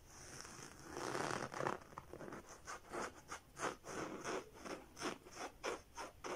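Rhythmic scratching or rubbing, with a rough stretch and then short quick strokes at about three a second.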